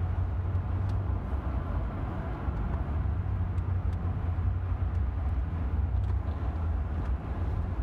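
Steady low rumble of a car driving on a highway, engine and tyre-on-road noise heard from inside the cabin.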